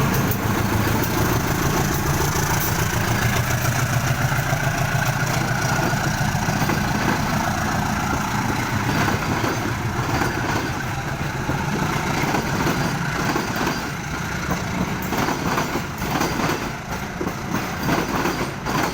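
Diesel locomotive engine running with a steady low hum as the train pulls out, easing off slightly and becoming more uneven in the second half.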